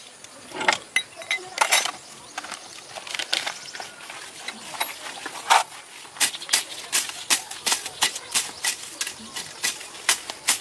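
A series of sharp clicks and knocks, scattered at first, then coming about two or three a second in the second half.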